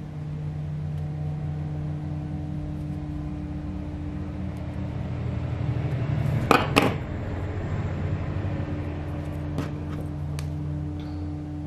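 Small pliers working a leather cord through a punched hole in a leather earring piece: two sharp clicks close together about halfway through and a few lighter ticks later. A steady low mechanical hum runs underneath.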